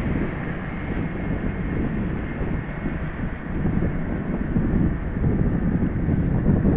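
Strong wind buffeting the microphone: a loud, dense, gusting rumble.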